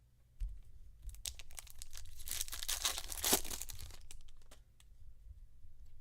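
A trading-card pack wrapper being torn open: a soft thump near the start, then a crinkly tearing noise that builds over about three seconds and fades out.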